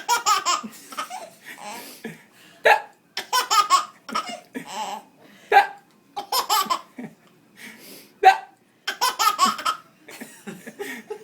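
Fake hiccups from an adult, three short sharp "hic" sounds about three seconds apart. Each is followed by a burst of a baby's laughter.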